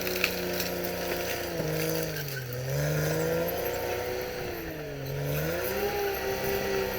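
Caterpillar D6R XL bulldozer's diesel engine running, its speed sagging and recovering twice, with a sharp clank about a third of a second in.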